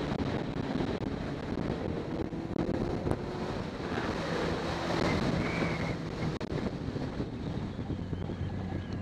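Wind rushing over the microphone of a camera on a moving motorcycle, over the steady running of the motorcycle's engine. The engine note drops lower about seven seconds in.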